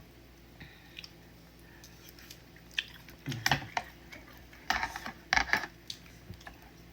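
Close-up eating sounds from a bowl of udon noodle soup: slurping and smacking with utensils clattering against the dish, in two short flurries about three seconds in and again about five seconds in.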